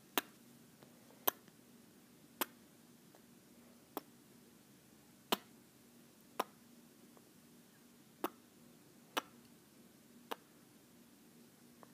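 A toddler's kisses close to the microphone: nine short, sharp lip smacks, about one a second, with quiet between.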